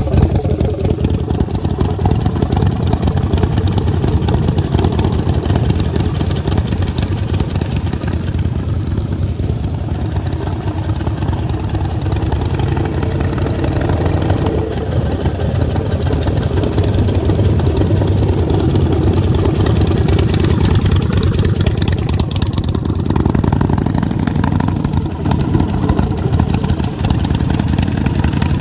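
Supercharged custom chopper motorcycle's engine running steadily as the bike is ridden slowly around, a continuous low engine note with small swells in level.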